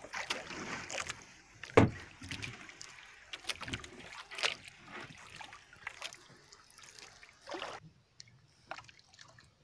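Scattered knocks and bumps on a small wooden outrigger fishing boat at sea as a weighted handline is let out, over a faint wash of water and wind; one louder thump about two seconds in, and near silence near the end.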